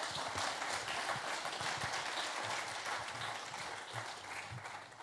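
Audience applauding: dense clapping that holds steady, then thins out and fades near the end.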